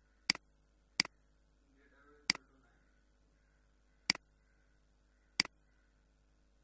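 Five sharp computer mouse button clicks, each a quick press-and-release double tick, spaced irregularly a second or more apart. A faint low murmur comes about two seconds in.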